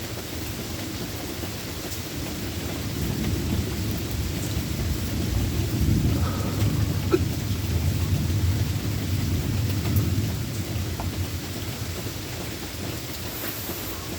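Steady rain with a long, low roll of thunder that builds from about four seconds in, is loudest in the middle and fades away toward the end.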